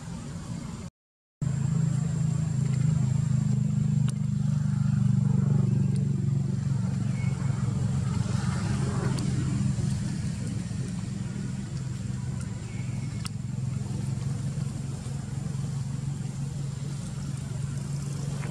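A motor running steadily with a low, even hum, cutting in suddenly after a brief dropout about a second in.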